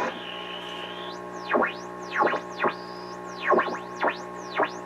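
Whistles from the Luxman R-5030 receiver's AM tuner through its speakers, over a steady hum: a held high whistle, then about six squeals that each sweep down to a low pitch and straight back up, like beat whistles heard while tuning across the AM band. No station comes through: the AM section is faulty.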